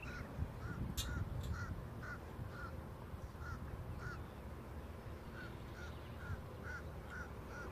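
A bird giving a short call over and over, about twice a second, with a brief pause midway, over a low steady rumble.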